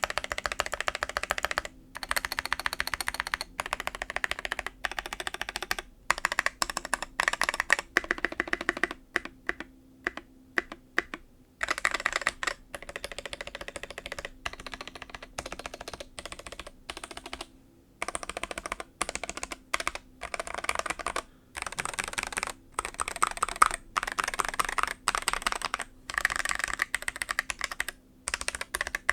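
Mechanical keyboard being typed on in fast, continuous runs of keystrokes, with brief pauses between bursts. It is an Akko ACR 75 with an acrylic case, FR4 plate, Holy Tom tactile switches and blank keycaps.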